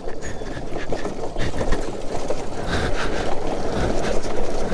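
Motorcycle ridden slowly down a slippery, muddy off-road trail in first gear with the clutch let out, the engine holding it back on the descent. The noise is rough and busy, with many small knocks.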